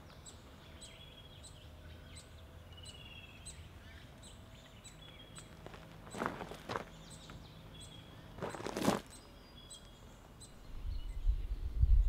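Bush ambience: birds chirping, with a high ticking call repeated about twice a second, and two short crunches of footsteps on gravel about six and nine seconds in. A low rumble comes in near the end.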